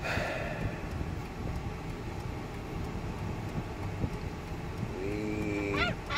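Steady road noise inside a moving vehicle's cabin. Near the end an Amazon parrot calls, holding a low note and then sweeping sharply up into a high whistle.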